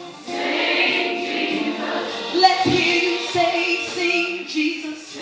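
A choir singing a slow, sustained worship song, with held notes shifting in pitch.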